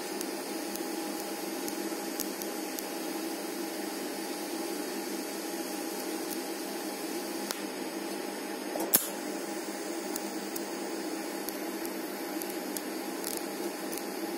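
TIG welding arc at about 90 amps on steel, a steady hiss with a faint hum. A single sharp click comes about nine seconds in.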